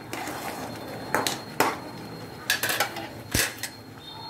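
A metal spatula clinking and scraping against a metal pan while stirring thick, cooking rava kesari so it doesn't stick to the bottom. There are several separate clinks, the loudest about three and a half seconds in.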